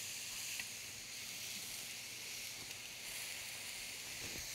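Pineapple skewers sizzling steadily in a hot grill pan brushed with sunflower oil.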